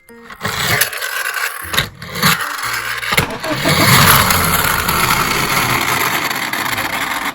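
Tomica die-cast toy police cars rolling down a slope track: a few sharp clacks in the first three seconds, then a continuous rolling rattle from about three seconds in.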